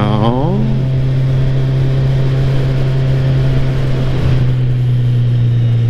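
Motorcycle engine running steadily as the bike is ridden, with a constant rush of wind noise over it.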